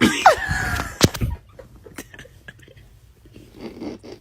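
A short animal cry that falls steeply in pitch, then a sharp knock about a second in and a few faint clicks.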